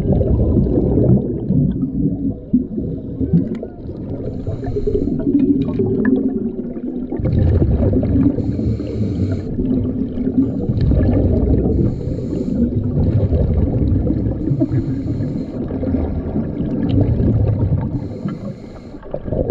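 Scuba divers breathing through their regulators underwater: the exhaust bubbles come out in hissing, gurgling bursts every three to four seconds over a steady low rumble of churning water, all heard from underwater.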